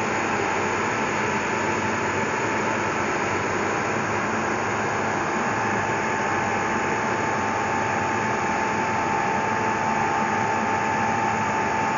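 Steady machine whirring with a constant mid-pitched whine, unchanging throughout.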